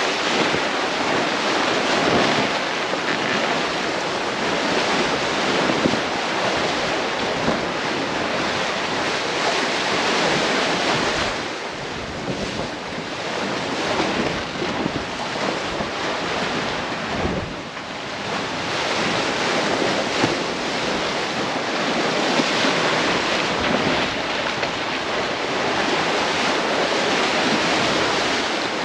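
Sea water rushing and splashing steadily along a sailing catamaran's bow and hulls under way, with wind buffeting the microphone.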